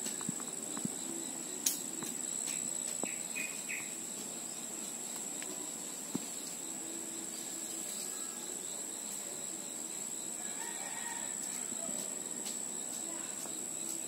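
Steady high-pitched trilling of insects, with a few faint bird calls in the distance.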